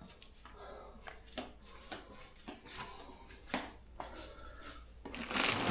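Hands rummaging through packed accessories in a box: scattered small clicks and taps, then louder rustling and crinkling of plastic packaging near the end.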